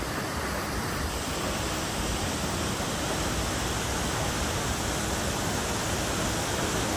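Steady rushing of a large, high waterfall: an even wash of falling-water noise with no breaks.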